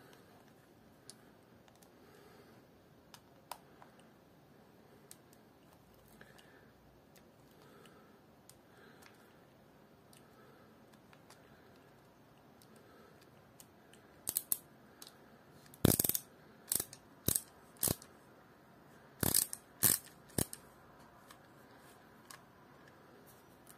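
Quiet room tone with a few faint ticks, then a run of about eight sharp clicks and taps over some six seconds, the loudest about two-thirds of the way through, as a screwdriver works a screw out of a plastic-bodied Haibo Origin 1 baitcasting reel that is handled in the hand.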